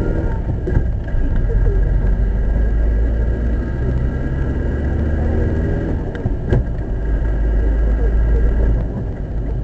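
A car driving, heard from inside the cabin through a dashboard camera: a steady low engine and road rumble that grows louder about a second in and eases near the end, with a couple of short sharp clicks.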